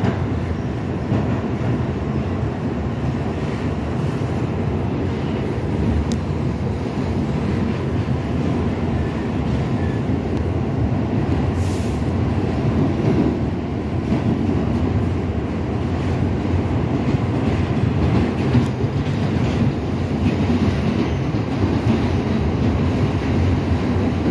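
Inside a New York City subway car under way: the steady low rumble of the train running on the rails, with a few brief clicks, the sharpest about twelve seconds in.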